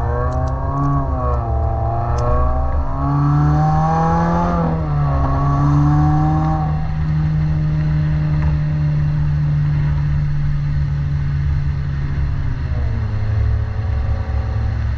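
2018 Subaru WRX's turbocharged 2.0-litre flat-four running through a Nameless axle-back exhaust while driving. The engine note climbs and dips in pitch, drops sharply about five seconds in, holds a steady note for several seconds, then steps down to a lower steady note near the end.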